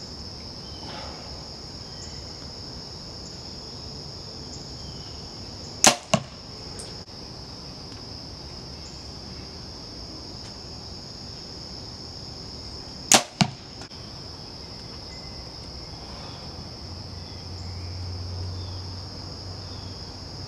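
Compound bow shot twice, about seven seconds apart. Each shot is a sharp snap of the string on release, followed a moment later by a second smack as the arrow strikes the target about 21 yards away.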